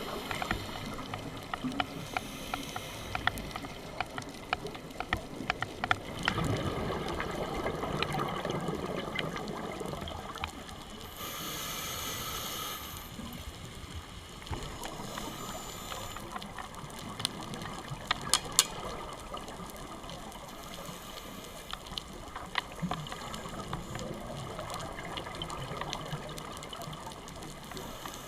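Underwater sound picked up by a dive camera: a diver's scuba regulator exhaust bubbles gurgling in swells, with scattered sharp clicks and crackles throughout.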